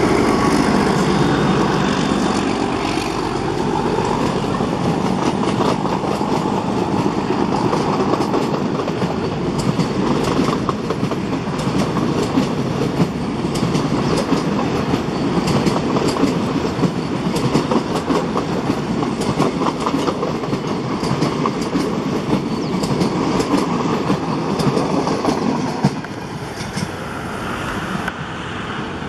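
A YDM-4 metre-gauge diesel locomotive's engine running as it passes close at the start, followed by a rake of passenger coaches rolling past with a steady clickety-clack of wheels over the rail joints. The sound drops about 26 seconds in as the last coach goes by and the train recedes.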